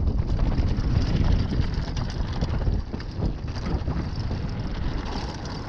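Wind buffeting the microphone as a mountain bike rides fast down a dirt trail, with tyre noise and a constant rattle from the bike over the rough ground. It eases a little about halfway through.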